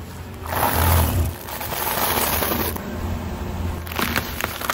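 Car rolling slowly over asphalt: a rushing tyre noise with a low engine rumble, loudest about a second in, fading after nearly three seconds. Near the end, a short run of sharp crackles as the tyre meets grit or a packet on the road.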